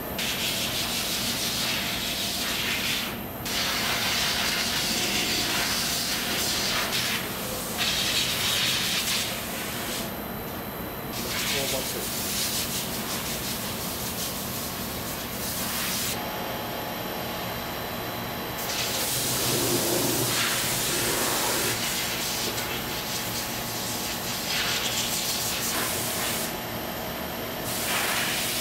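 Compressed-air blow gun hissing in repeated bursts as it blows water off knife blades, over a steady low factory hum.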